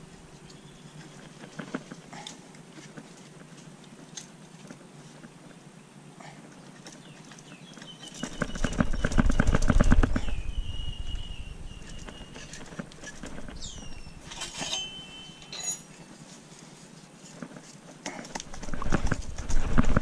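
Metal motorcycle muffler being twisted and worked by hand onto the exhaust link pipe, a quick rattling scrape of metal on metal. It is loudest about eight to ten seconds in and comes again near the end, with only small clicks before it.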